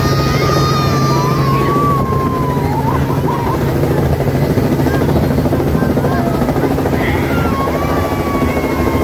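Light helicopter flying low overhead, its rotor and engine making a loud, steady, rumbling drone. Thin gliding high tones sound over it near the start and again from about seven seconds in.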